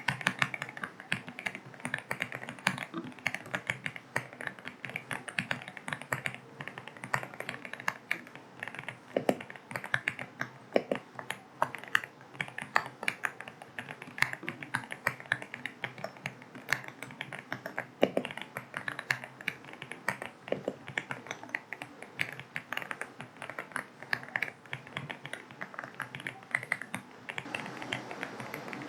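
AULA F75 mechanical keyboard with linear switches being typed on: a fast, irregular run of keystroke clicks over a steady rain hiss. Near the end the typing thins out and the hiss swells.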